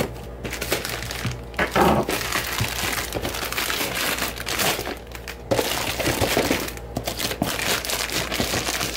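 Plastic parcel wrapping being crinkled and torn open by hand, a dense run of crackles and sharp rips.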